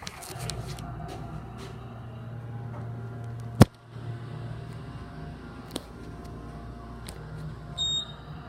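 Otis passenger elevator cab in motion: a steady low hum of the ride, a single sharp click a few seconds in, and a short high electronic ding near the end.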